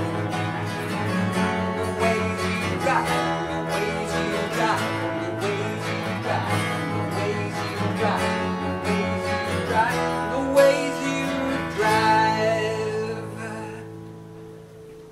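Acoustic guitar and a bowed double bass playing the closing bars of a folk-country song, the bass holding long low notes under the guitar. The playing winds down about twelve seconds in and the last notes ring out and fade.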